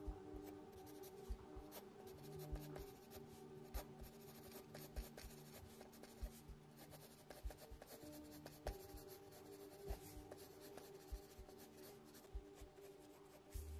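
A mechanical pencil shading on sketch-pad paper: faint graphite scratching in short, repeated strokes. Behind it is quiet background music with a soft, regular beat about once a second.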